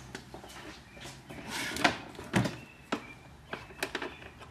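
Scattered clicks and knocks of hands and tools handling the hard plastic body of a child's ride-on toy tractor, with the loudest knocks about two seconds in.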